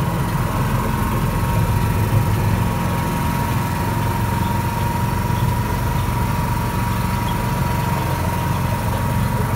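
Petrol-hydraulic miniature railway locomotive's engine running steadily, heard from the cab, with a thin steady whine above the low engine note.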